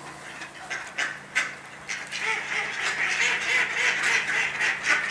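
A flock of mallards quacking and chattering. The calls thicken into a dense, louder chorus from about two seconds in, after a few short sharp sounds.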